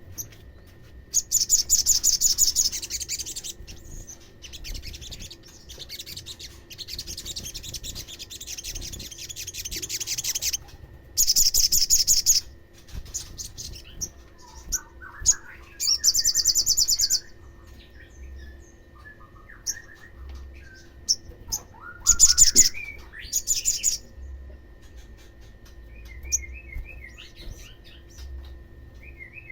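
Olive-backed sunbird song: bursts of fast, high trills lasting one to three seconds, alternating with softer, lower twittering chirps.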